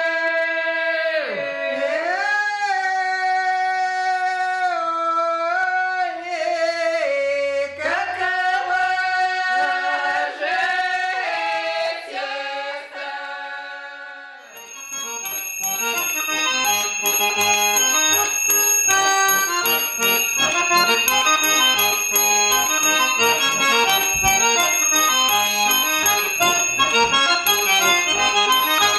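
Four women's voices singing a cappella in harmony, with held chords, fading out about halfway through. Then a concertina plays a busy tune, with a steady high tone running through it.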